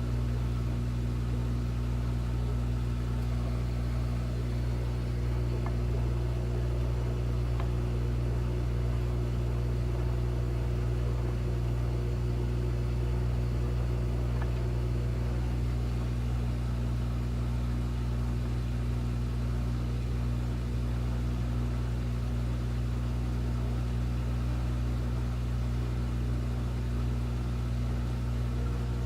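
Washing machine that will not go into its spin running with a steady low hum, several faint steady tones over it and no change in pitch or level.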